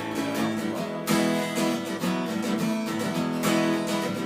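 Acoustic guitar strummed in a steady rhythm, chords ringing between strong down-strokes.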